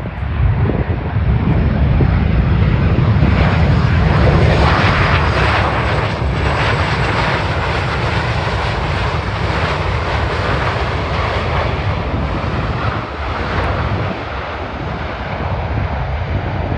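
Jet engine noise from a Boeing 717 airliner's two rear-mounted turbofans as it rolls along the runway: a deep rumble under a broad jet roar that builds over the first few seconds, is loudest a few seconds in, then slowly fades as the jet moves away.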